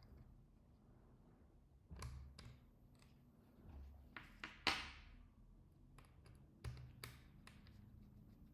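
Faint clicks, taps and short scrapes of screws being driven back into a laptop's back panel with a small screwdriver. One brief scrape just before the middle is the loudest sound.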